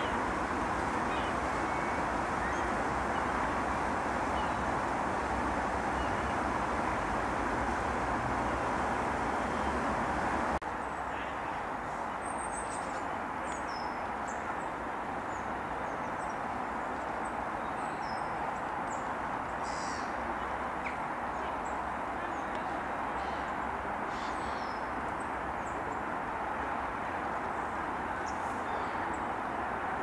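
Steady outdoor background noise with faint, short, high bird calls scattered through after the level drops slightly about ten seconds in.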